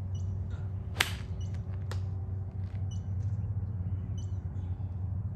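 A golf iron strikes the ball once, a sharp click about a second in, over a steady low background hum.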